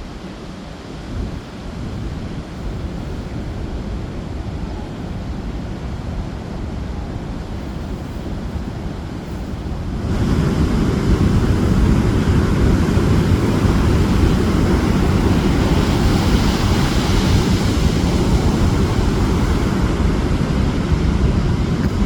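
Heavy ocean surf breaking, with wind buffeting the microphone. About halfway through, the low rumble jumps abruptly louder and stays there.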